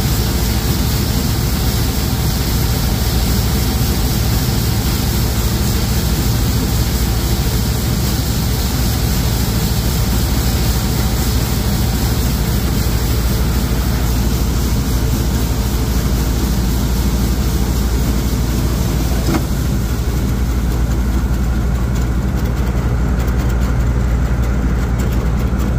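John Deere 6620 Titan II combine running steadily under load while shelling corn: its diesel engine and threshing machinery make a continuous low hum.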